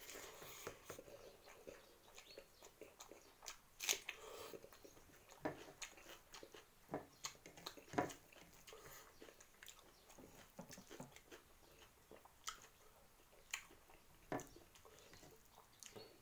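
Close-up eating sounds of a person eating rice and Maggi noodles by hand: chewing and lip smacks with scattered sharp clicks, the loudest about four and eight seconds in.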